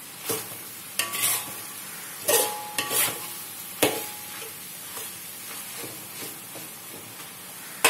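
Metal spatula scraping and knocking against a metal wok while minced chicken and sliced onions are stir-fried, over a steady sizzle. The knocks ring briefly and come mostly in the first half, then the stirring goes quieter.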